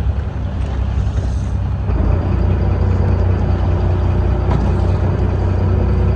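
Fishing boat's engine running with a steady low drone; about two seconds in it steps up slightly and a faint hum in several tones joins it. Wind and choppy sea sound underneath.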